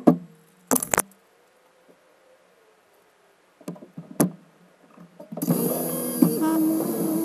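Car audio played back fast: a few sharp knocks and clicks, then near silence, then the car's engine starts about five seconds in and runs loudly, its pitch rising and dipping.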